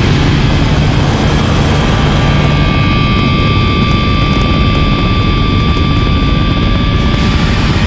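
Rocket engine roar, a loud steady rumble, with a thin steady high tone coming in about two seconds in and stopping near the end.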